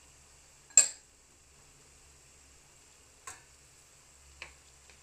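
A sharp knock about a second in, then two lighter taps of a wooden spatula against a frying pan near the end as stirring begins.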